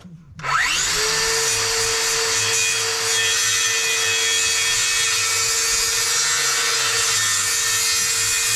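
An electric power saw spins up about half a second in and runs steadily at full speed, cutting through a wooden siding board.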